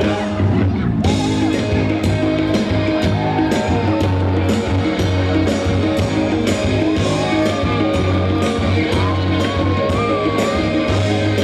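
Live rock band playing: drums keeping a steady beat under bass and electric guitar, with a melody line rising and falling over the top in the second half.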